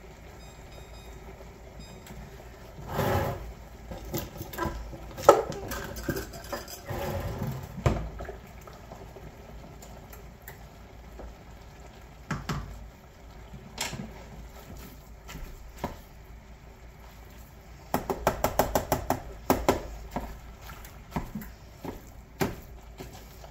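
Plastic meat chopper knocking and scraping in a skillet as ground beef and sausage are broken up while browning, irregular taps throughout, with a quick run of rapid taps about eighteen seconds in.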